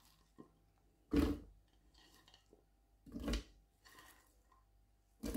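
Chopped red bell pepper dropped by the handful into a plastic blender jug: a few soft thuds and rustles of pepper pieces landing, the loudest about a second in and about three seconds in, with another at the very end.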